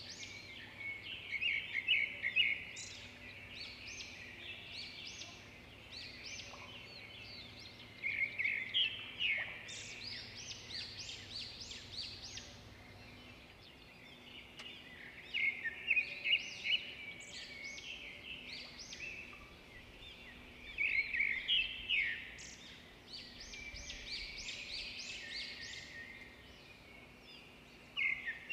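A bird chirping and trilling in repeated bursts every several seconds, over a faint steady hum.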